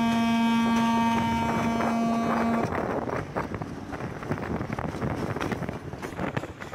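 Train horn sounding a long, steady multi-tone chord that cuts off about two and a half seconds in. After it come the rattle and clatter of the moving train's wheels on the track, with wind buffeting the microphone.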